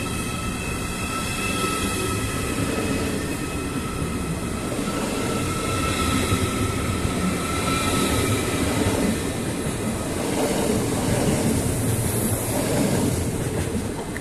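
Deutsche Bahn ICE 4 high-speed train rolling past along the platform: a steady rumble of wheels on rails, with a thin high whine through the first half. The sound eases as the last car moves away.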